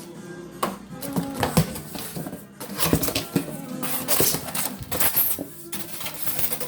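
Clattering, rustling and knocks of a refrigerator's cardboard box and packing being handled and pulled apart, over steady background music.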